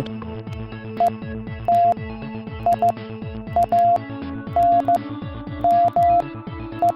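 Morse code tones at one steady pitch, keyed as short dots and long dashes in groups about a second apart, over electronic background music. The groups run dot, dash, dot-dot, dot-dash, dash-dot, dash-dash, dot-dot-dot: the letters E, T, I, A, N, M, S, the code patterns in binary counting order.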